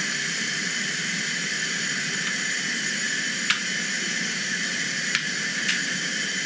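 Steady rushing hiss of compressed air pouring into a hyperbaric chamber as it is pressurised, with a few small clicks. The divers are equalising their ears against the rising pressure.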